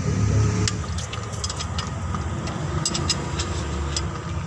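Mitsubishi Canter 125's diesel engine idling steadily, with a few light metallic clicks from a spanner working a nut at the injection pump.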